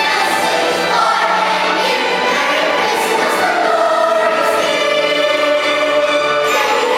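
A choir singing, many voices holding long notes together.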